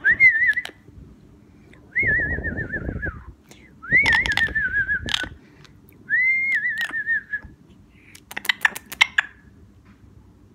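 Double yellow-headed amazon parrot whistling four times, each whistle rising sharply and then warbling downward, followed by a quick series of sharp clicks near the end.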